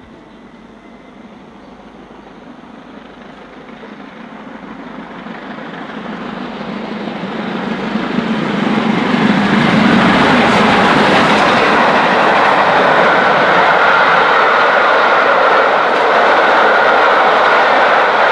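BR Standard Class 7 'Britannia' 4-6-2 steam locomotive 70013 Oliver Cromwell approaching and passing at speed with a train of coaches. It grows steadily louder over the first half and is loudest as the engine goes by, about ten seconds in. Then comes a steady loud rush of the coaches running past on the rails.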